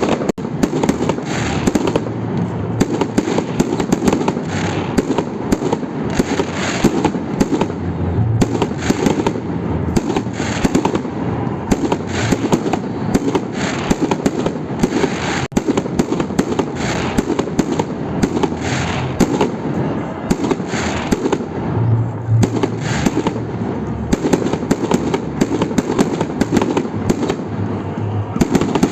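Fireworks salute: a dense, unbroken barrage of bangs and crackling shell bursts.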